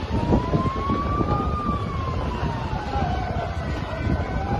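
Emergency vehicle siren on a slow wail: its pitch rises, falls for about two seconds, and starts rising again near the end. A steady low rumble of wind on the microphone lies under it.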